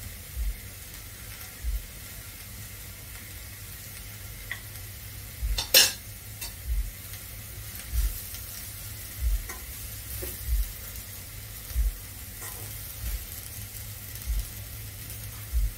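Chopped tomatoes, capsicum and green peas sizzling in a stainless steel pan over the gas while being stirred with a metal slotted spatula: a steady frying hiss with a soft knock at each stroke, a little more than once a second, and one sharp clack of the spatula on the pan about six seconds in.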